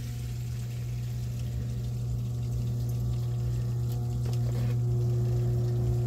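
Zoeller M53 submersible sump pump running with a steady hum and water churning in the pit, switched on by lifting its new piggyback float switch. The hum grows slightly louder, and a higher steady tone joins near the end.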